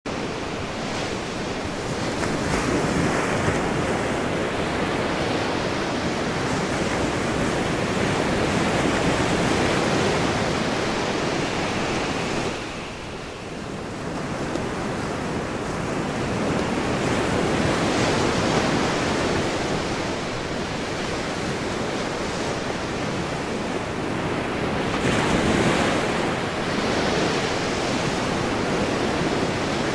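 Ocean surf, waves breaking and washing with wind over them, the noise swelling and ebbing, with a brief lull a little before halfway.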